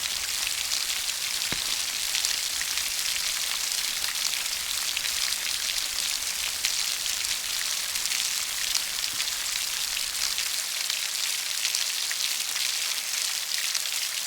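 Steady rainfall: an even hiss of rain with many small drops pattering on a surface.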